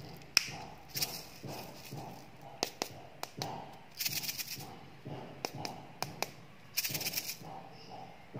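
Small plastic cola-can-shaped candy containers handled and opened: sharp plastic clicks and taps, with two short crackly bursts about four and seven seconds in.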